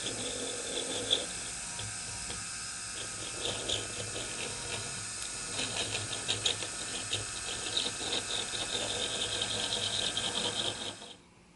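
High-speed rotary tool running steadily with a pointed high-speed steel cutter, scratching and chattering in irregular bursts as it textures briar wood. The tool stops abruptly near the end.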